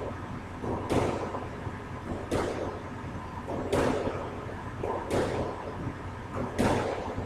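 Squash ball being hit solo: five sharp smacks of racket and ball against the court wall, evenly spaced about every second and a half, each with a brief echo.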